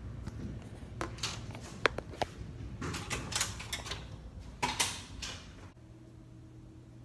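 Handling noise from a phone being carried: irregular rustling, clicks and knocks, some sharp, for about six seconds. Then it cuts suddenly to a quieter steady hum.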